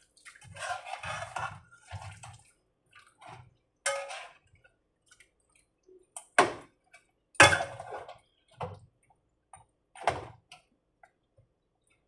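Kitchen handling sounds: water splashing and scattered sharp knocks of a cooking pot and utensils, the loudest knock about seven and a half seconds in.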